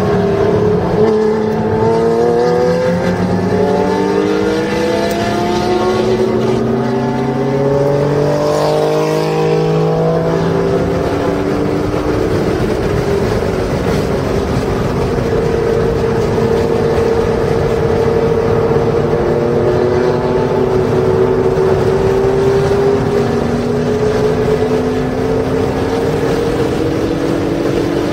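Porsche track car's engine heard from inside the cabin, pulling hard under acceleration. Its pitch climbs over the first ten seconds, holds fairly steady through the middle, then rises again near the end as the car speeds up onto the straight.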